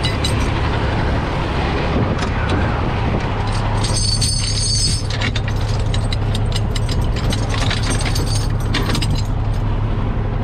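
Steel tow chains and hooks clinking and rattling against each other in a tow truck's side toolbox, the clinks coming thick and fast from about four seconds in. Under them runs the steady hum of the truck's idling engine.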